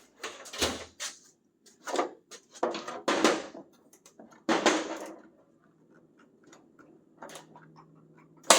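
Parts and tools being handled while stripping a truck cab: a series of scrapes and clatters in the first five seconds, then a quieter stretch and one sharp knock near the end.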